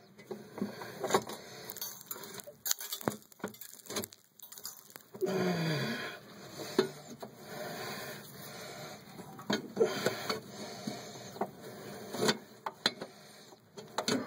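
Cast iron fireplace damper hardware handled by hand: scattered clicks and knocks with some scraping, as the pin in the damper handle is fitted back in.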